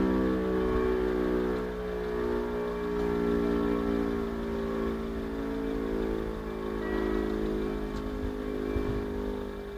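Electric-mechanical civil-defence warning siren sounding a steady, unbroken tone that holds its pitch with only a slight waver. In this test, the steady one-minute tone is the all-clear (Entwarnung) signal.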